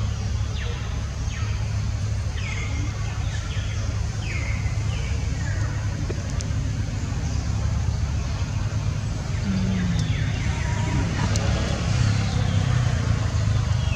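Outdoor ambience: a steady low rumble, with short high chirps that fall in pitch, repeated every second or so in the first half and again near the end.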